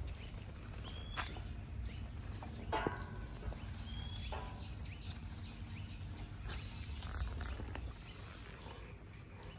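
Quiet outdoor ambience at a horse wash area: a low steady rumble, a few short bird chirps, and occasional light knocks, one about a second in and one near three seconds.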